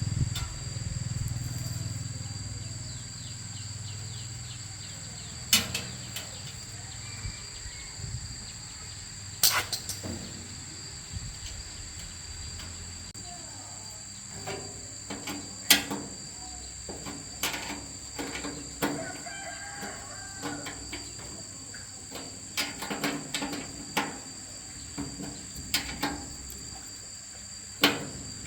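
Crickets trilling steadily, with scattered sharp knocks and clicks from the repair work. A low rumble fades out over the first few seconds.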